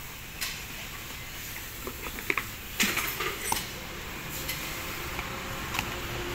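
Plastic mudguards and a cardboard box being handled: scattered light rustles and clicks, with a few sharper knocks as the pieces are taken out and set down, most between two and three and a half seconds in.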